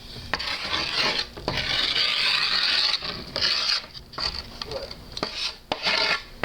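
Skateboard grip tape being scraped and rubbed along the deck in several rasping strokes, the longest about a second and a half.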